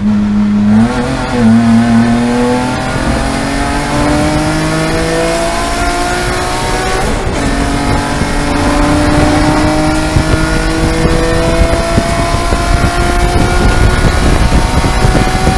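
BMW E46 M3 race car's S54 straight-six accelerating hard, heard from inside the cabin, its note climbing steadily in pitch through the gears with an upshift about halfway through.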